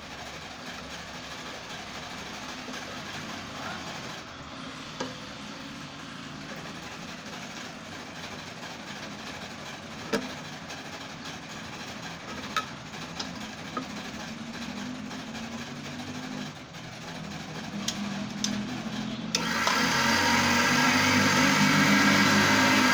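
Vertical key-cutting machine: a few sharp metal clicks as keys are set and clamped in its vise, then about nineteen seconds in the machine's motor switches on and runs steadily and loudly.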